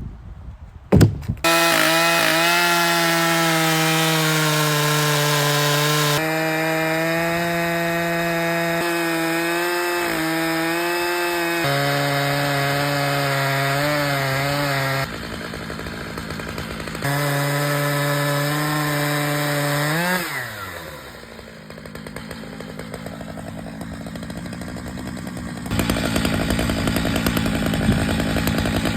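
A Stihl MS 881 single-cylinder two-stroke chainsaw runs at full throttle under load, ripping an ash log lengthwise on a chainsaw mill. A sharp knock comes about a second in, just before the saw comes up to speed. About twenty seconds in the revs fall away, then a rougher, noisier cutting sound follows.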